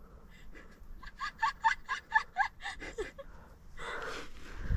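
A person laughing in a quick run of short "ha" pulses, about four a second, followed by a breathy rush near the end.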